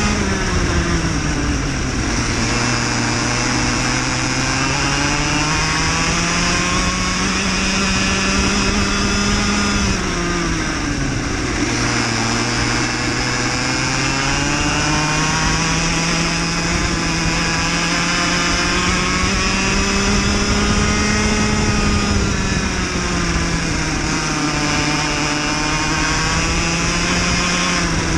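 Onboard sound of a cadet racing kart's small engine at racing revs. Its pitch drops sharply as it slows for corners near the start, around ten seconds in and about twenty-two seconds in, and climbs steadily as it accelerates in between, over a steady hiss.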